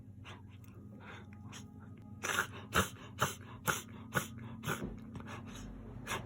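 Miniature dachshund reverse sneezing: rapid, forceful, noisy pulls of air in through the nose, fainter at first, then loud and about two a second from about two seconds in, easing near the end. A vet took it to be reverse sneezing, and the owner puts it down to gum inflammation spreading into the nose.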